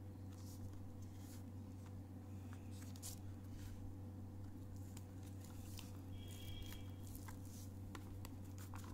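Cardboard and plastic packaging of a boxed diecast model car being handled: scattered light clicks, scrapes and rustles as the box is turned and its card insert taken out, over a steady low hum.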